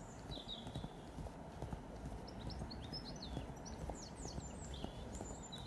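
Soft rhythmic thuds of feet landing on grass as a man does mountain climbers, alternating legs. Small birds chirp in a quick run of short calls in the middle.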